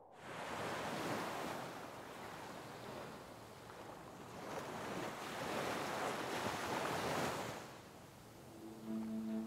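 Waves washing onto a shore, swelling and drawing back in two long surges. Music comes in near the end.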